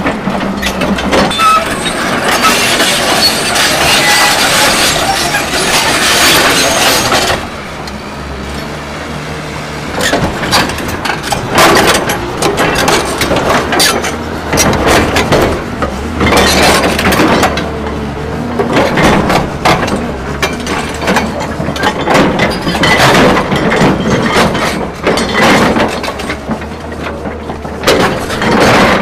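Excavator engine running steadily while its ripper tooth scrapes and breaks at frozen ground, with repeated scraping, cracking and clinking of frozen soil and stone; the frozen ground resists the ripper. The scraping drops off briefly about a quarter of the way in.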